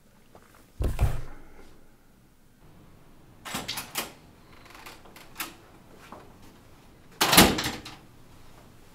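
A door latch clicking and a heavy door banging, the bang the loudest sound, about seven seconds in. A dull thump comes about a second in.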